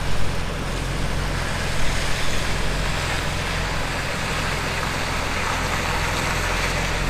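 HGV diesel engine running steadily, heard from inside the cab as the lorry moves off slowly in drive.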